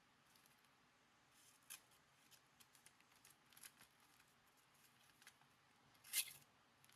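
Faint scrapes and small clicks from a credit-card-sized folding knife being tried out on a cut, with a brief sharper rasp about six seconds in.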